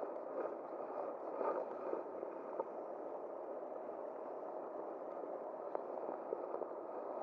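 Steady rush of flowing river water, an even wash of sound with a few faint small ticks.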